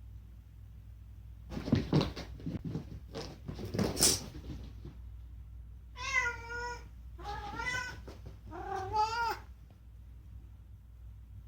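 A pet cat meows three times in a row, each call bending in pitch, after a few seconds of clattering knocks and rustles.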